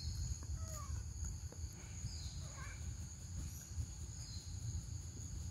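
Steady high-pitched insect chorus over a low rumble, with a couple of faint short chirps about a second in.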